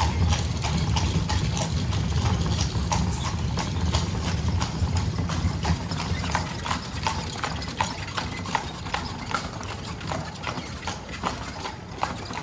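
Carriage horse's hooves clip-clopping steadily on cobblestones, with a low rumble of the carriage wheels rolling over the cobbles underneath that eases off in the second half.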